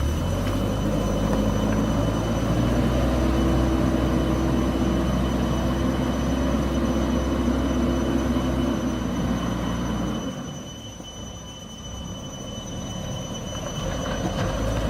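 JCB backhoe loader's diesel engine running steadily, then dropping off about ten seconds in and building up again towards the end, with a steady high whine underneath.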